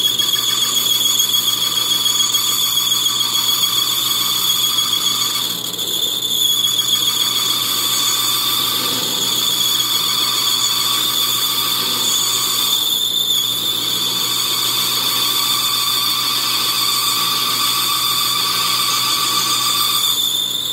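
Metal lathe running while cutting a thin steel clip, with a steady high-pitched squeal from the cut that briefly drops out about three times.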